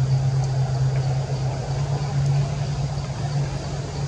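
A steady low engine hum at one constant pitch, over a faint background hiss.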